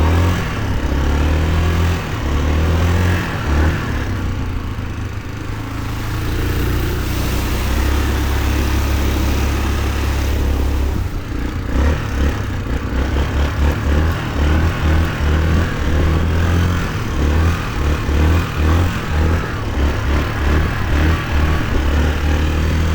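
2004 Yamaha Kodiak 450 ATV's single-cylinder four-stroke engine running under load while riding off-road. The engine note is fairly steady at first, then from about halfway through it rises and falls in quick, uneven pulses as the throttle is worked.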